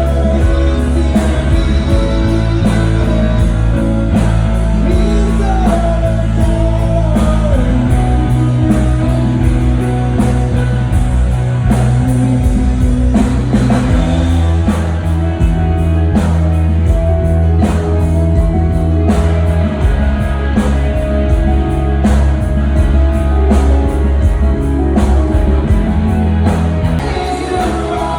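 Rock band playing a song live with a singer, electric guitar, bass and drum kit, loud and continuous.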